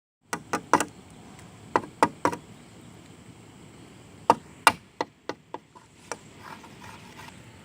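A series of sharp knocks and taps at uneven spacing, in small clusters of two or three.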